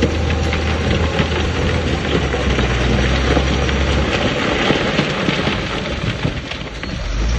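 Heavy earthmoving machine's diesel engine running under a dense crackling rattle of fill stone being moved; the engine note drops about four seconds in.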